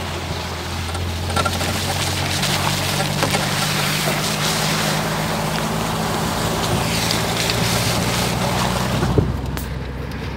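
Wind blowing over a phone microphone with a low, steady engine hum underneath. About nine seconds in, a car door shuts with a single knock, and the sound then goes duller.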